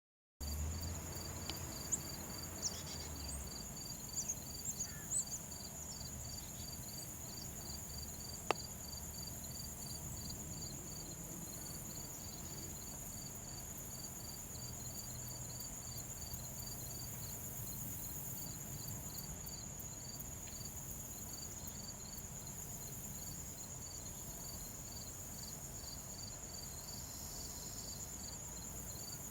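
Insects calling outdoors: a steady high-pitched trill, with a second insect chirping in a regular pulse a few times a second underneath, over a low rumble. A single sharp click sounds about eight seconds in.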